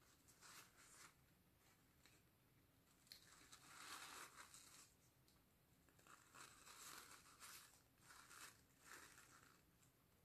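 Faint soft rustling of a wet, paint-soaked paper napkin being peeled off an acrylic-poured canvas, in several separate pulls.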